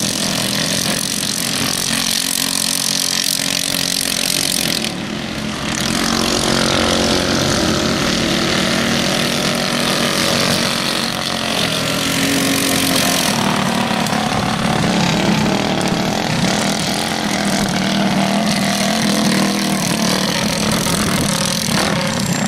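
Several small go-kart engines running at racing speed around a dirt track, their pitch rising and falling as the karts pass and lap.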